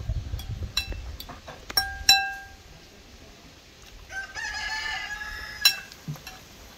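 Metal spoon clinking against a ceramic bowl several times, the loudest clink about two seconds in. A rooster crows for about a second and a half past the middle.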